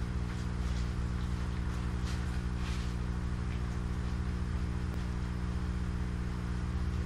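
Steady electric hum of aquarium-style aerator air pumps running to bubble air into the hydroponic nutrient tanks. A few soft scrapes and rustles in the first three seconds as the foam floating-raft boards are handled.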